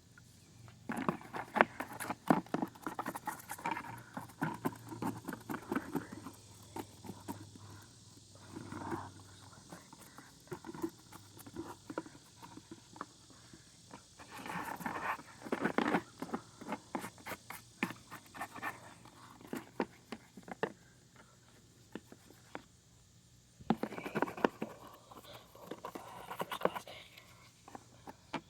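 Scrubbing and handling soapy lawn mower parts: irregular scratchy strokes with scattered knocks and clicks, in uneven bursts with short lulls.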